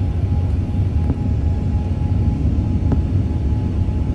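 Airbus A380 cabin noise in the climb after takeoff: the steady low rumble of the four engines and the airflow, with a faint steady whine and a couple of faint ticks.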